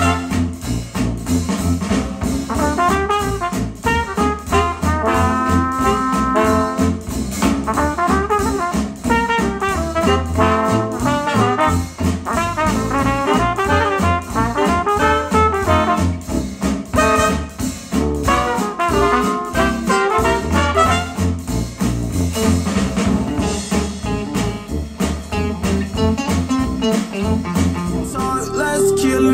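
Brass-led retro jazz, trumpet and trombone over a steady rhythm, played back through Polk Audio XT15 bookshelf speakers driven by a Yamaha A-S301 integrated amplifier. Near the end the tune gives way to a different song.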